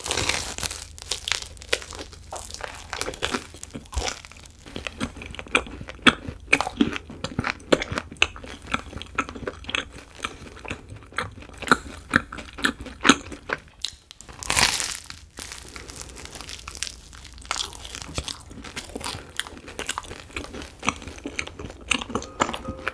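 Close-up crunching and chewing of a croffle topped with honey jelly, crisp cracks coming in quick succession. One longer, louder crunch comes about two-thirds of the way through.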